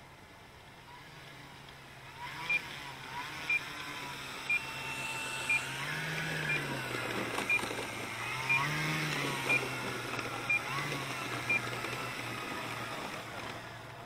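Model airplane engine running at low throttle as the plane taxis in, growing louder from about two seconds in and swelling in pitch twice, about six and nine seconds in. A short high beep repeats about once a second, ten times, from about two and a half seconds in.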